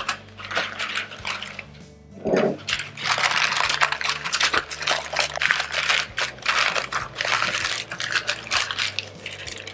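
Greaseproof paper crinkling and rustling as a log of soft butter is rolled up tightly inside it, the crackling starting about three seconds in and going on almost to the end, over quiet background music.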